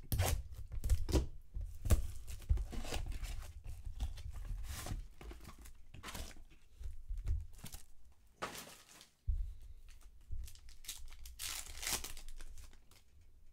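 Hands tearing open a Topps Chrome Sapphire Edition trading-card box and its foil pack: a run of short tearing and crinkling noises, with longer rips about eight and a half seconds in and again near the end.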